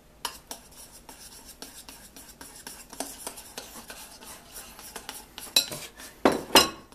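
Metal spoons clinking and scraping against ceramic mixing bowls while cake batter is stirred, in a run of irregular light clicks. A few louder clinks come near the end.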